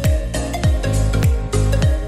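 Background music with a steady beat: a deep kick drum about every 0.6 seconds under bright percussion and sustained tones.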